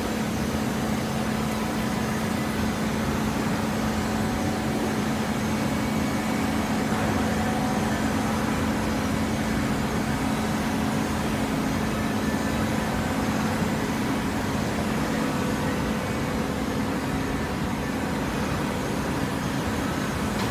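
Automatic horizontal hydraulic baler running: a steady mechanical drone with a constant low hum under broad machinery noise.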